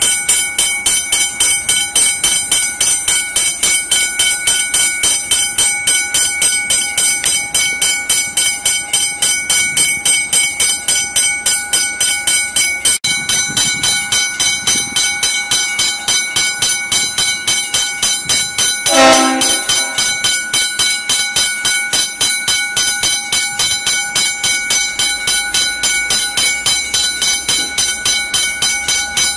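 Level crossing warning bell ringing continuously with rapid, even strikes as a V/Line N class diesel locomotive approaches. About two-thirds of the way through, the locomotive sounds a single short horn blast.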